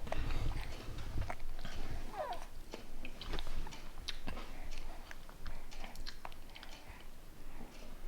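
A baby's wet mouth and lip smacking as he eats mashed food, with small scattered clicks.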